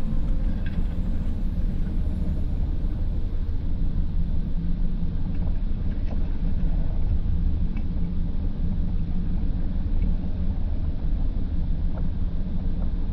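Steady low rumble of a jet ski running at low speed, mixed with wind noise on the microphone.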